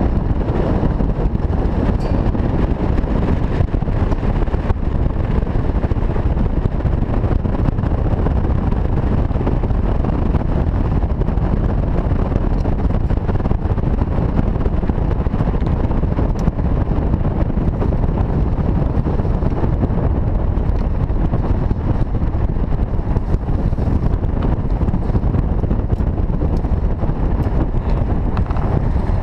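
Steady wind buffeting on the microphone of a camera mounted outside a moving truck, over the dense low rumble of the vehicle running on a gravel road.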